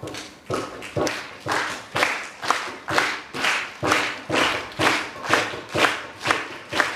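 A steady beat of strikes, about two a second and growing louder, tapped out by hand on an up-cycled trash-band instrument held to a microphone, with hand-clapping in time to it.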